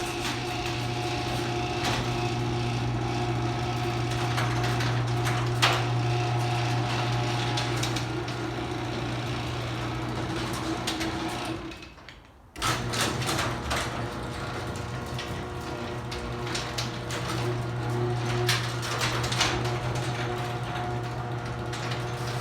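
Liftmaster garage door opener motor running with a steady hum while the door travels, with rattling and clicking from the door and track. It stops about twelve seconds in, then starts again for another run.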